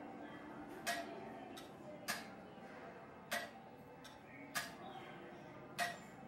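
Mechanical clock ticking slowly and evenly, a sharp tick about every 1.2 seconds, five ticks in all.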